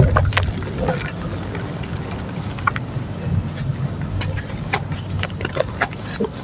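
Soft dry mud chunks crumbling and being worked into paste in water: a steady low wet churning with many small, irregular crackles and pops.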